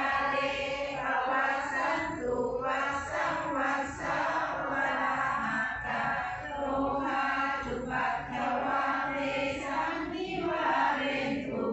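A group of voices chanting Buddhist prayers together in unison, a steady recitation broken by short pauses between phrases.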